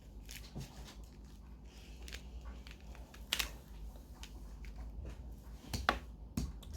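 Plastic mirror cube being turned by hand in the last moves of a solve: faint, irregular clicking of its layers, with a couple of louder clicks about three and a half and six seconds in.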